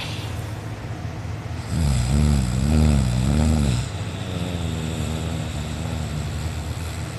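A sleeping person snoring: a loud, wavering snore about two seconds in, lasting about two seconds, then a quieter, steadier one.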